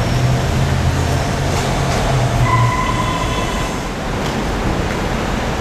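Steady rumble and hiss of vehicle noise in an underground car park. A low hum runs through the first two and a half seconds, and a brief high whine sounds about halfway through.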